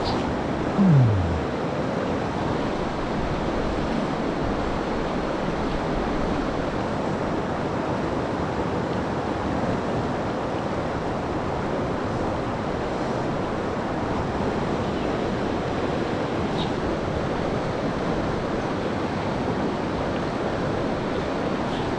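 Steady rush of a fast-flowing river. About a second in, a short loud sound drops in pitch.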